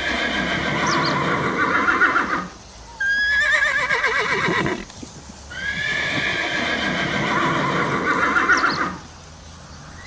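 Horse whinnying: three long neighs in a row, separated by short pauses, each with a shaky, quavering pitch.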